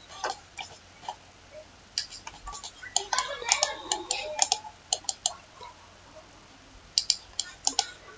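Computer keyboard keys and mouse buttons clicking in short quick runs, sparse at first, a dense run about two to five seconds in and another near the end.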